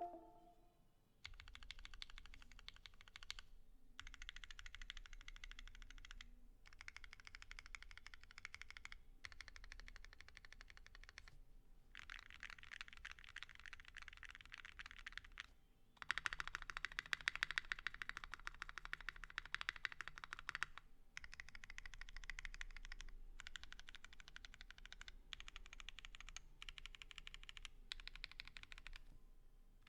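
Typing on a Geonworks F1-8X custom mechanical keyboard with lubed and filmed Banana Split linear switches, an aluminium leaf-spring plate and GMK keycaps: fast runs of key clacks in bursts a few seconds long with short pauses between them. The typing is fastest and loudest from about sixteen to twenty-one seconds in.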